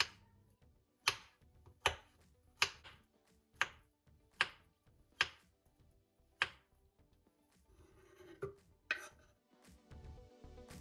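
Kitchen knife slicing through a peeled banana and knocking on a bamboo cutting board, about eight sharp chops a little under a second apart. Then a scrape and two knocks as the slices are pushed off the board into a plastic blender cup. Soft background music underneath.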